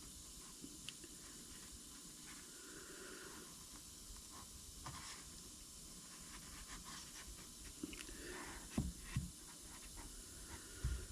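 Faint hand-work sounds on a plastic part: light scraping, soft hissing and small scattered clicks, with two or three soft knocks near the end.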